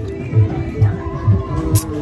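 Background music with a steady beat: a low kick drum about twice a second under a sustained melody.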